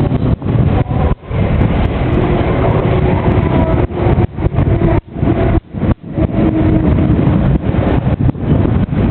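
Loud rumble of vehicles passing over a railway level crossing, with wind buffeting the microphone. The sound dips sharply for an instant several times.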